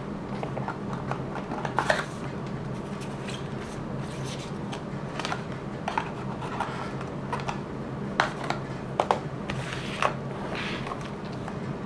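Hands handling packaging and small objects: scattered sharp clicks and taps with brief rustling between, the loudest clicks about two seconds in and again around eight to ten seconds, over a steady low hum.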